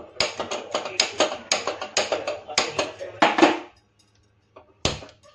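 Steel pots and utensils clattering on a gas stove: a quick run of sharp metallic clinks and knocks for about three and a half seconds, then a single knock near the end.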